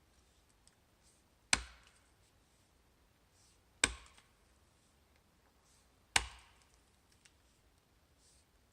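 Felling axe chopping into wood: single heavy blows, each with a short ringing decay, about every two and a half seconds, with a fourth blow landing right at the end.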